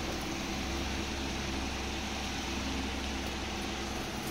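A steady low machine hum with a hiss over it, unchanging throughout.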